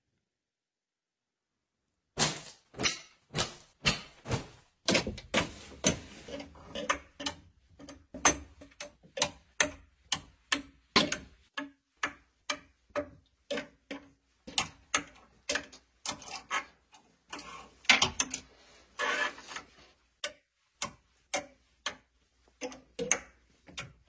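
Metal wire clothes hangers clicking against a closet rail as garments are hung and pushed along it. The clicks start about two seconds in and come at roughly two a second, with a longer rustle of fabric about three quarters of the way through.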